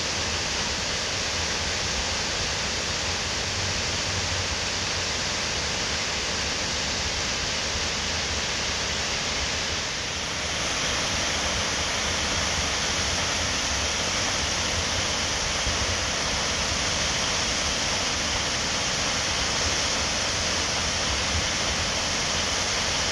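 Waterfall pouring steadily, a constant rushing hiss of falling water that dips briefly and turns slightly brighter about ten seconds in.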